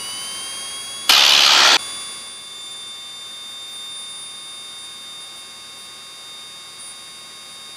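Piper Cherokee 140's Lycoming O-320 at full throttle for the takeoff roll, heard through the cockpit intercom. A high whine climbs over the first couple of seconds as the engine comes up to power and then holds steady. About a second in, a loud burst of hiss lasts under a second.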